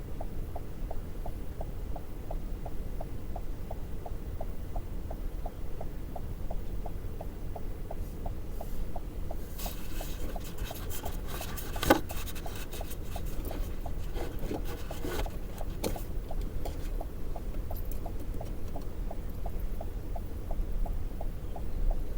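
Low rumble of a vehicle rolling along at idle, heard from inside the cabin, with a faint, even ticking about three times a second. From about ten to sixteen seconds in there is rustling and clicking, with one sharp knock near the middle.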